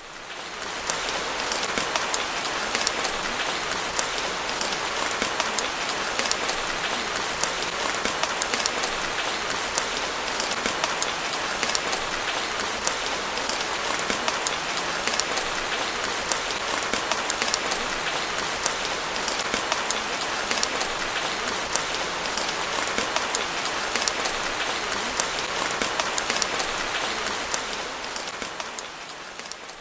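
Steady rain, a dense patter of drops. It swells up in the first second and fades away near the end.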